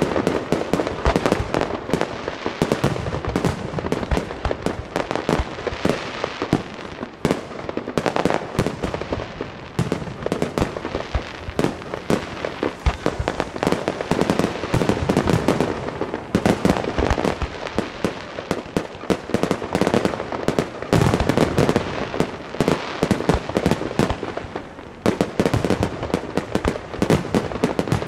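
Fireworks display of aerial shells bursting: a dense, continuous barrage of sharp bangs and cracks, many a second, with heavier clusters of booms now and then.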